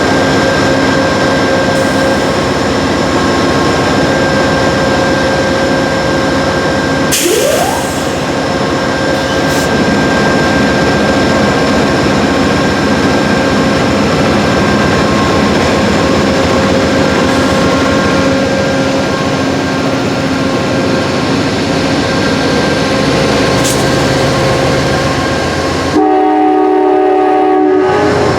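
Amtrak passenger train with a GE P42DC diesel locomotive running loud and close, a steady mechanical din. Near the end a horn chord sounds clearly for about two seconds.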